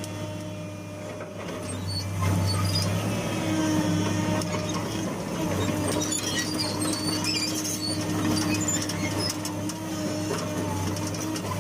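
Hitachi UH045-7 hydraulic excavator's diesel engine running steadily, getting louder about two seconds in, with scattered high squeaks and clicks.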